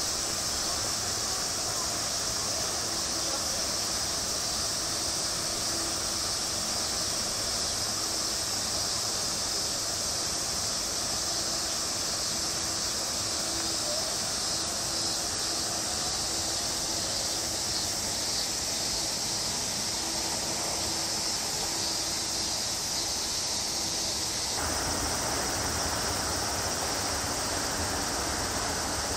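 Steady high-pitched buzzing of a summer cicada chorus over a constant outdoor hiss. About 25 seconds in, the background turns fuller and lower.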